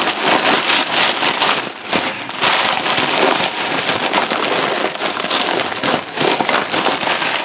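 Tortilla chips crushed by hand inside a plastic bag, crackling and crinkling, over the steady sizzle of ground beef browning in a lidded frying pan.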